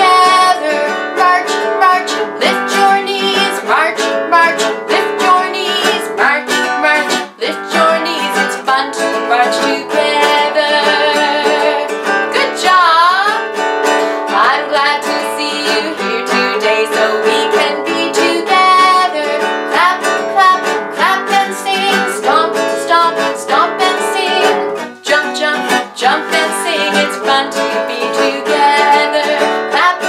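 A woman singing a children's song while strumming an acoustic guitar.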